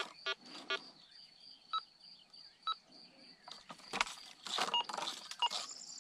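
Handheld metal detector beeping as its coil sweeps over a rock: a couple of low, buzzy beeps in the first second, then single higher clean beeps about a second apart, and more short beeps near the end. Brush rustles against the coil in the second half.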